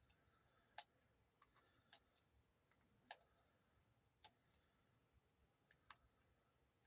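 Faint, scattered clicks, about six of them, from small hardware and a tool being handled while the pot nuts and washers come off a plastic guitar pickguard.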